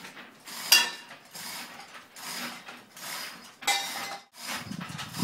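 Metal lifting gear clicking and clinking as a heavy window is hoisted on straps: a run of small ratcheting clicks, about two or three a second, with a sharper clank about a second in and another near four seconds.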